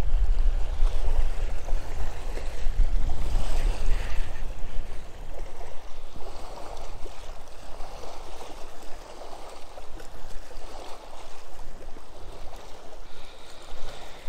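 Wind noise on the phone's microphone and small waves lapping at a rocky lakeshore, with the phone being handled. The low wind rumble is heaviest for the first five seconds or so, then eases.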